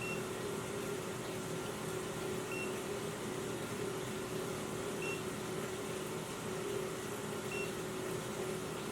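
A carbon monoxide detector giving a short, high electronic beep about every two and a half seconds, four times, over a steady hum.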